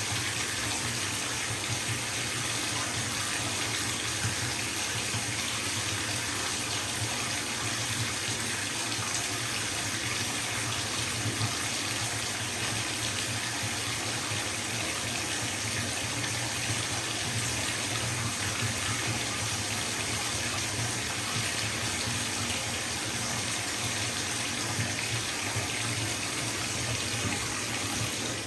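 Bathtub filling from a running tap: a steady, even rush of water pouring into the tub.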